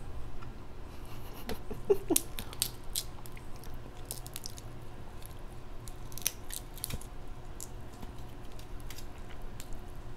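Close-miked chewing and smacking of crab meat with sauce: wet mouth sounds and scattered sharp clicks, busiest about two seconds in and again around six seconds in.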